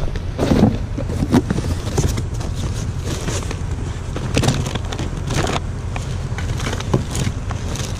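Irregular footsteps and crackling, scraping noises of cardboard boxes and trash being walked up to and handled, over a steady low rumble.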